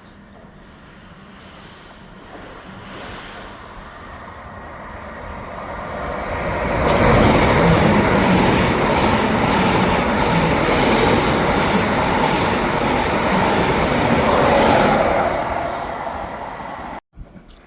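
Electric multiple-unit passenger train passing close by: its running noise builds over several seconds, stays loud for about eight seconds as the carriages go by, then fades away. The recording drops out briefly near the end.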